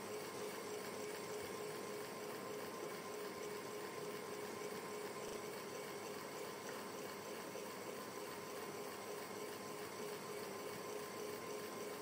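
Ceiling fan running steadily: a continuous even whoosh of moving air with a faint steady hum.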